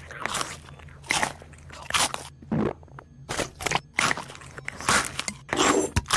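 Cartoon chewing sound effects: a series of loud, irregular crunches, like something hard being bitten and chewed with the mouth open.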